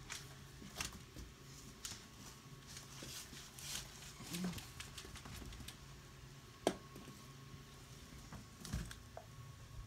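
Faint handling sounds of an air hose being cleaned off by hand: scattered light rustles and clicks, with one sharper click about two-thirds through, over a low steady hum.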